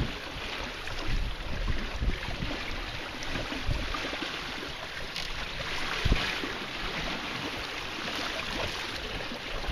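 Water rushing and splashing along the hull of a wooden sailing canoe under sail in choppy water, with gusts of wind buffeting the microphone.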